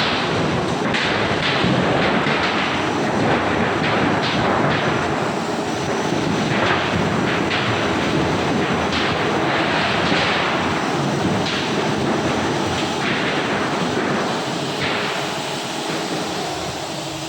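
Metal profiled-sheet roll forming machine running: loud, dense, steady machinery noise with scattered knocks, easing off slightly near the end.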